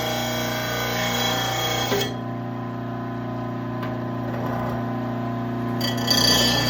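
Electric mower-blade sharpener's motor running steadily while a mower blade is ground on it. About two seconds in the grinding hiss drops away, leaving the motor hum, and near the end the grinding starts again.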